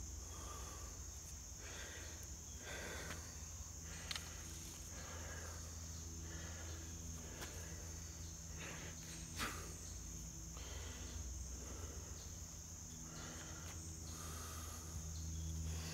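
Crickets chirring steadily in a continuous high trill, with faint swishing strokes about once a second from palms rubbing a hand-drill spindle against the fireboard.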